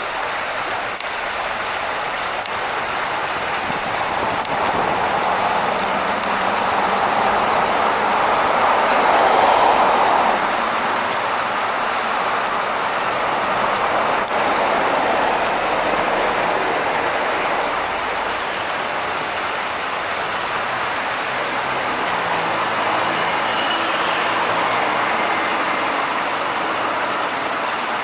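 Shallow stream water rushing and splashing over rocks, a steady rush.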